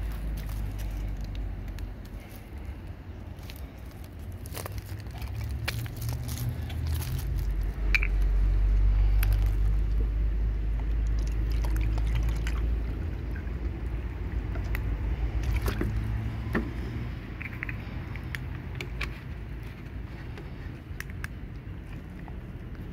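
Water poured from a plastic bottle into a small glass, over a steady low rumble with scattered sharp clicks.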